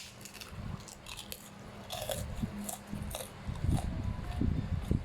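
A person chewing food with a mouth close to the microphone. There are crisp, crunchy crackles about two seconds in, then a run of heavier chewing near the end.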